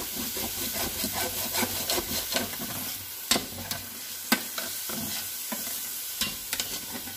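Diced onions and peppers sizzling in oil in a stainless steel skillet while being stirred with tongs, with a steady hiss and sharp clicks of the tongs against the pan, the loudest a little after three and four seconds in.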